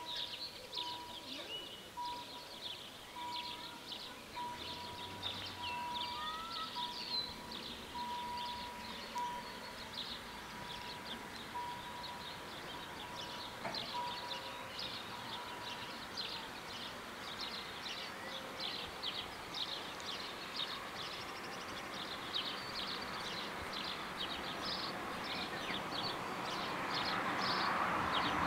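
Level-crossing warning bell ringing in a repeated tone while the barriers come down, stopping about halfway through just after a single knock. Birds chirp throughout, and near the end the noise of an approaching diesel train (a LINT 81 railcar) swells.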